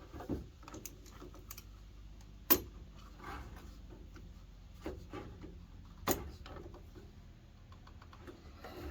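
Scattered clicks and knocks of hand tools and string trimmer parts being handled, with a sharp knock about two and a half seconds in and another about six seconds in.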